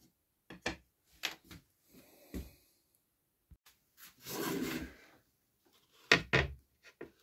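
Wooden pieces and an MDF disc handled on a wooden tabletop. A few light knocks and taps come first, then a sliding rub about four seconds in, then two sharp knocks close together near the end.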